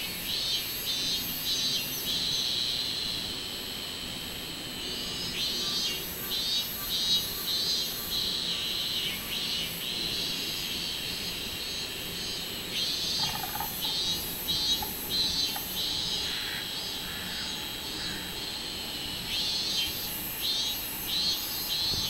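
Minmin cicadas (Hyalessa maculaticollis) calling. Four bouts of fast pulsing calls come about every six or seven seconds over a continuous high-pitched cicada buzz.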